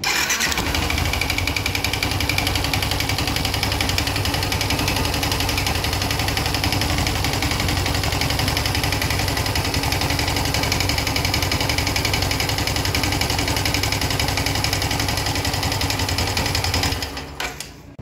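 Yamaha Crosser 150's single-cylinder four-stroke engine running with the valve cover off, making a steady, rapid, strong knocking clatter that fades out near the end. The valves and cam chain have been checked and found fine; the mechanic takes the knock for a worn piston rocking in the cylinder (piston slap).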